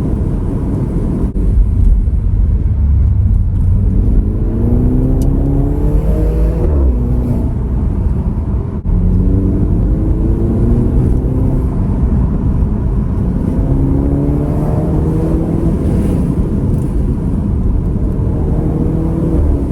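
BMW 320i xDrive's turbocharged four-cylinder engine accelerating hard through the gears: the revs climb, drop at each upshift, and climb again several times.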